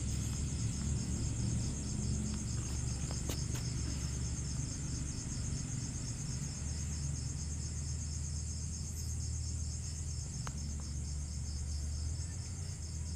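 Steady, finely pulsing high insect trilling like crickets, over a low steady hum, with the faint scrape and a couple of light taps of a steel trowel spreading cement mortar on the back of a ceramic tile.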